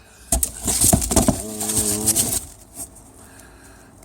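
Sandpaper rolls and their packaging being handled and rummaged through, giving a burst of crinkling and rustling with sharp clicks that lasts about two seconds, with a brief pitched squeak partway through.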